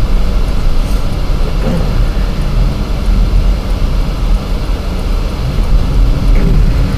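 Steady low rumble of a car's tyres and engine while driving on a snow-covered road, heard from inside the cabin.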